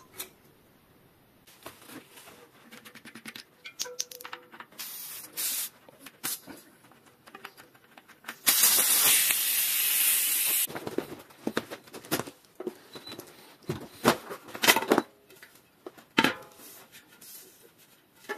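Air hissing out of a mountain-bike tyre valve in one steady rush of about two seconds, about halfway through, ending abruptly: the tyre being let down before it is taken off the rim. Scattered clicks and knocks of tools and wheel handling come before and after.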